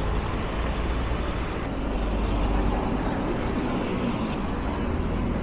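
City street traffic: a steady low rumble of cars, swelling slightly a couple of seconds in.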